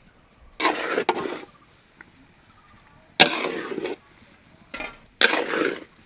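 Metal spatula scraping and turning thick potato-and-pea samosa filling against a steel kadai: three scrapes about a second long, each starting with a sharp clink, and a shorter scrape between the last two.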